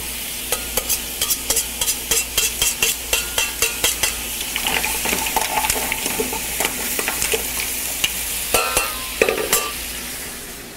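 Littleneck clams, mussels, shrimp and scallops sizzling in olive oil in a sauté pan, with quick clicks of a metal utensil against the pans, about three a second for the first few seconds and again briefly near the end, as sautéed garlic is scraped in and stirred.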